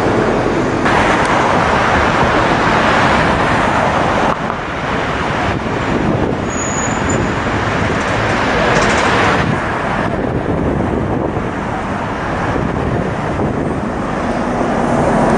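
City street traffic noise, a steady rush of engines and tyres that swells louder twice as vehicles pass. Near the end an articulated city bus pulls past close by, its engine adding a low steady hum.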